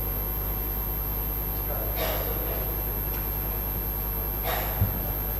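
Quiet room tone with a steady low hum, two short hissing noises about two and four and a half seconds in, and a low thump just before the end.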